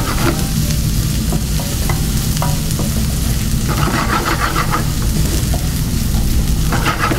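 Finely chopped onion, garlic and parsley sizzling in oil in a frying pan on a gas burner, stirred with a spatula that scrapes now and then against the pan, over a steady low hum.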